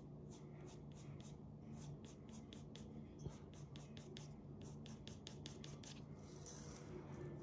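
Faint scratching of a graphite pencil on paper in quick, short strokes, several a second: hatch marks shading a drawing.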